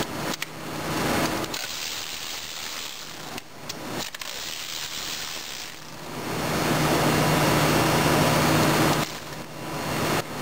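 Milwaukee M12 cordless 3/8-inch ratchet (2457-21) running in several bursts of its motor, the longest and loudest lasting about three seconds in the second half.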